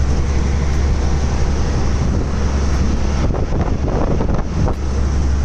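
Moving truck's cab noise at road speed: a steady low engine and road drone. From about three seconds in, wind buffets the microphone for a second or so as the phone is held at the open window.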